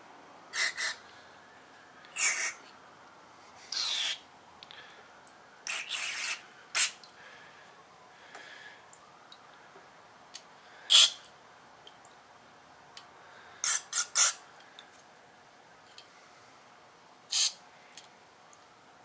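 Aerosol carburetor cleaner squirted through a thin extension straw into the passages of a Keihin VB carburetor body, flushing out leftover dirt: about a dozen short hissing spurts, each a fraction of a second long, at irregular intervals.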